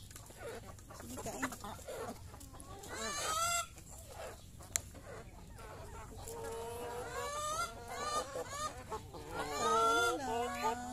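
A flock of hens clucking while they eat from a feeder, with short runs of calls that come thicker and louder toward the end.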